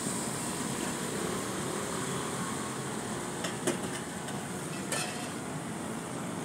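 Chole mixture sizzling on a hot flat tawa as liquid is ladled over it, a steady hiss that eases somewhat after the first seconds. A steel ladle clicks and knocks against the griddle a few times in the second half.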